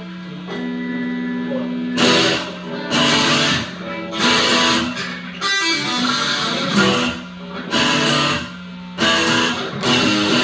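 Guitars playing a song, at least one through an amplifier: a held note, then loud strummed chords about once a second from about two seconds in, over a steady amp hum.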